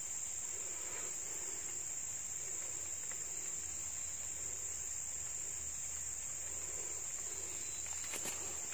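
Insect chorus: a steady high-pitched drone that holds unbroken throughout, with a couple of faint clicks near the end.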